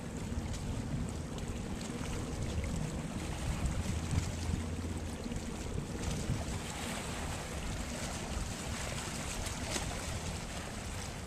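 Wind buffeting the microphone over water noise, with a steady low rumble underneath and a few brief crackles.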